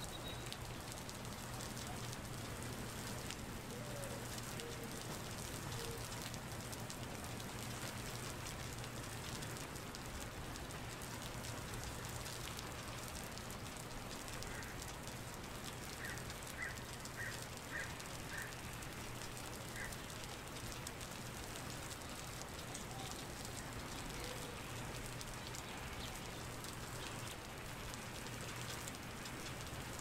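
Steady rain falling on a wet paved surface, drops splashing into a thin sheet of standing water. About halfway through, a brief run of about six short high notes sounds over the rain.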